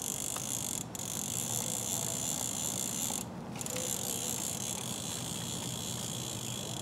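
Fishing reel being cranked to wind in the line after a cast, a steady ratcheting whir that pauses briefly about a second in and again about three seconds in.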